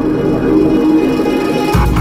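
Background music: sustained chords building up, then a heavy beat with drums kicking in near the end.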